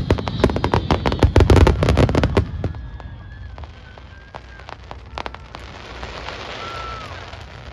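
Fireworks: a rapid barrage of many bangs and crackles that stops about two and a half seconds in, then a few scattered pops and a lingering low rumble. This is the closing barrage of a large fireworks display.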